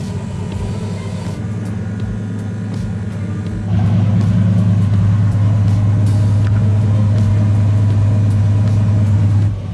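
Turbocharged 5.3-litre LS V8 running at a steady idle just after being started, louder from about four seconds in.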